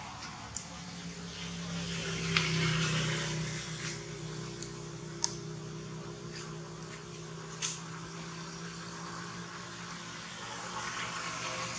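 A steady motor hum, loudest about two to three seconds in, with a few faint sharp clicks.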